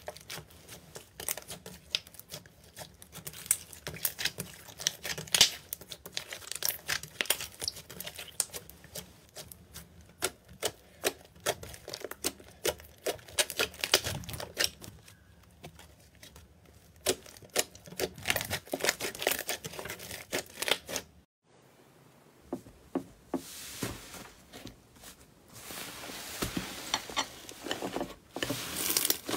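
Slime being squeezed and poked by hand, making rapid sharp clicks and pops of uneven loudness. About two-thirds of the way in the sound breaks off, and a denser crinkling, crackling texture follows, like crunchy slime being pressed.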